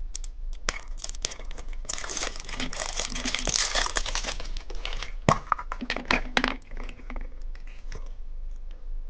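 Candy packaging crinkling and tearing as a wrapped cookie-egg candy is opened by hand, with scattered crackles and clicks. The crinkling is densest from about two to four and a half seconds in, with a few sharper crackles after that.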